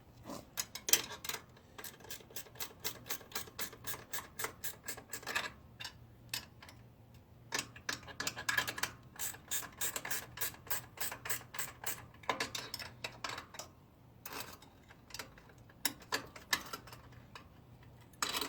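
Wrenches clicking on the stainless steel bolts and nuts of a boat-trailer rock-guard bracket as they are snugged up, in runs of quick metallic clicks with short pauses between.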